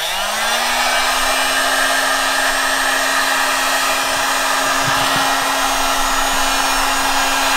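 Electric heat gun switched on: its fan motor spins up with a rising whine in the first half-second, then runs steadily with a loud, even rush of blown air.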